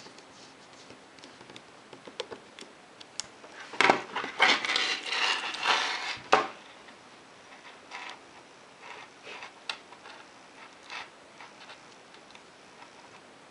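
Small precision screwdriver clicking faintly against the caseback screws of a Casio Databank DB-150, then a burst of metallic clinking and rattling a few seconds in as the watch's metal link bracelet is picked up off the table and handled. A few faint clicks follow.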